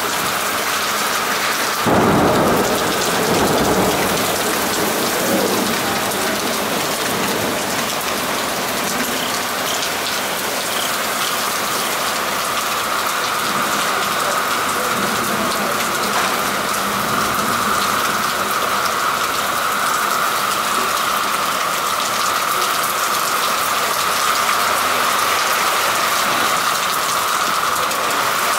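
Steady heavy rain falling on a city street and pavement, with a low rumble rising about two seconds in and fading over the next couple of seconds.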